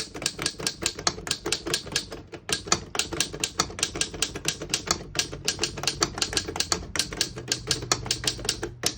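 Keys and typebars of a 1911 Smith Premier Model 10 full-keyboard typewriter striking the platen as a sentence is typed: a fast, uneven run of sharp clacks at about six a second, with short pauses between words.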